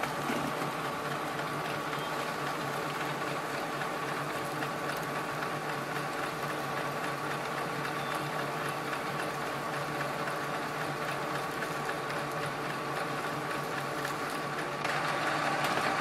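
HP DeskJet 3700 printer scanning, its motor running steadily as it feeds the page through, a mechanical whir with a hum. It gets a little louder about a second before the end.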